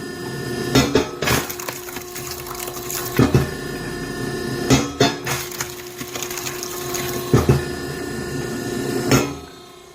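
Hydraulic log splitter running with a steady hum while its cross-shaped blade splits green oak rounds. Sharp wood cracks come about every one to two seconds.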